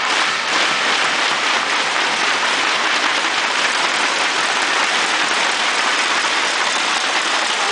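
Large arena crowd applauding, a dense steady clapping that holds at one level throughout.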